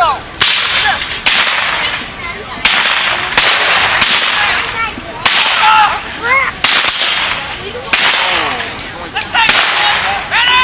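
Black-powder muskets firing in a reenacted Civil War skirmish: about ten sharp shots at uneven intervals, each trailing off in a short echo.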